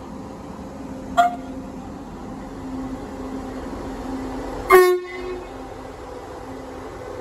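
Train horn giving two toots, a very short one about a second in and a louder, longer one near five seconds, over the steady hum of a train at the station.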